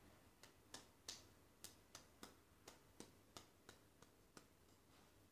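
A run of about a dozen faint, light clicks at a fairly even pace of about three a second, stopping about four and a half seconds in.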